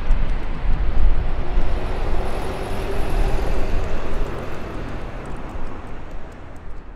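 Jet engine rumble of a Boeing 747-400 rolling out after touchdown: a steady roar, loudest about a second in, then fading away.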